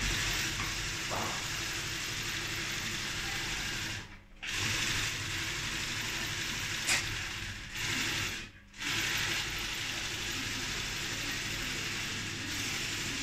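Sewing machine running at a steady speed in long runs, stopping briefly twice.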